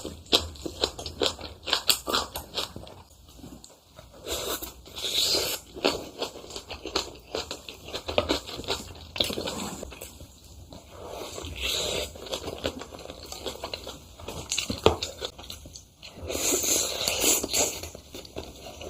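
Close-miked eating: chewing and smacking mouthfuls of spicy stir-fried squid, rice and green onion kimchi, with irregular wet clicks and crunches and a few louder bouts of chewing.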